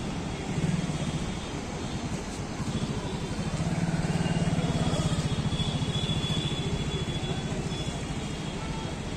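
Vehicles crossing the Rajghat road-and-rail bridge make a steady low rumble. It grows louder about three and a half seconds in and eases off near the end.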